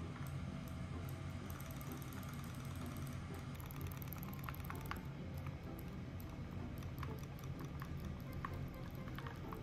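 Two battery-powered robotic toy fish running in a bowl of water: a steady low motor buzz with fast fine ticking as their tails flap, and a few light clicks and splashes as a kitten paws at them.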